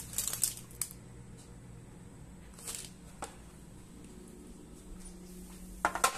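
Baking parchment rustling and crinkling in a few short bursts as the lined tray is handled, over a low steady hum.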